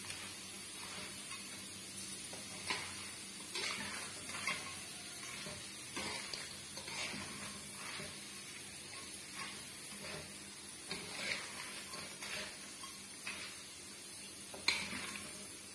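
Strips of cassava frying in oil in a wok, a light steady sizzle, with a metal spatula scraping and clinking against the pan every second or so as they are stirred.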